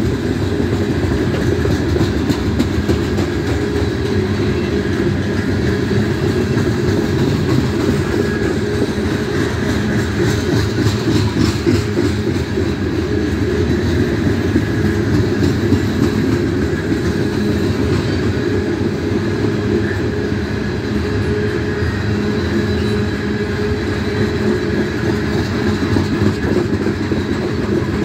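Coal hopper cars of a freight train rolling steadily past at close range: a continuous rumble of steel wheels on the rails, with clickety-clack over the rail joints and a run of sharper clicks about ten to twelve seconds in.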